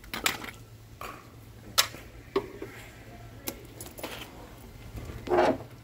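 Scattered clicks, taps and clatter of hand tools and parts being handled while a diesel generator's fiberglass shroud is taken apart, with a longer, louder rattle near the end.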